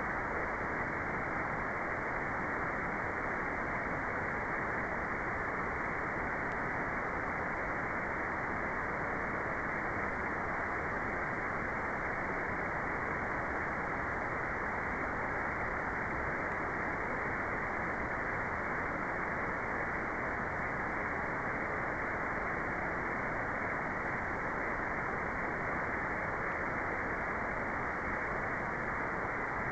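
Steady, unchanging white noise: an even rush with no high hiss in it.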